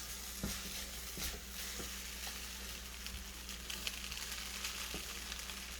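Chicken fried rice sizzling steadily in a pan on the stove, with a few faint clicks of stirring.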